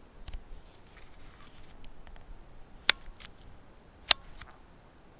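A few sharp clicks over a quiet background: two loud ones a little over a second apart in the second half, with fainter ticks around them.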